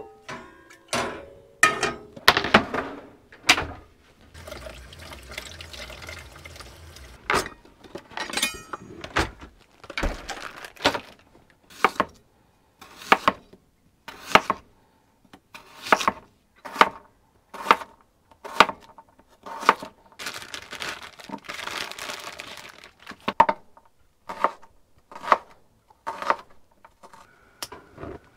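Cooking prep at a small sink and counter: water running from a tap for a few seconds at a time, twice, and a long string of sharp knocks, a knife chopping vegetables on a cutting board at about one stroke a second.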